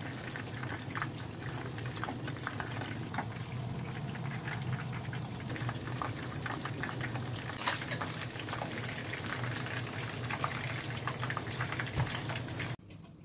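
Chicken pieces deep-frying in hot oil in a pan: a steady sizzle packed with fine crackles and pops, over a low steady hum. It cuts off abruptly near the end.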